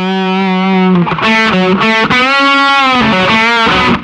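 Intro music on distorted electric guitar: one long held note for about a second, then a run of changing notes, some bent up and down in pitch.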